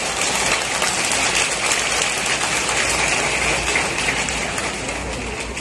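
Stadium crowd applauding, fading toward the end.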